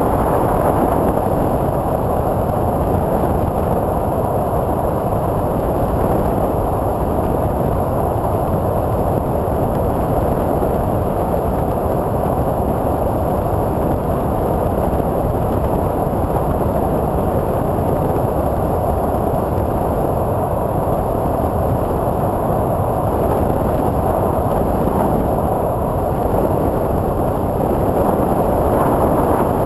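Twin electric motors and 8x6 propellers of a TwinStar II RC plane running steadily in flight, with air rushing past the onboard camera, and a faint steady high whine over the top.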